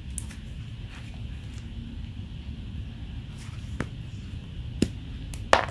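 Steel side cutters of Deli DL0005 combination pliers squeezing through sheathed NYM 2x1.5 electrical cable, with faint creaks and then two sharp snaps near the end as the jaws bite through the copper conductors.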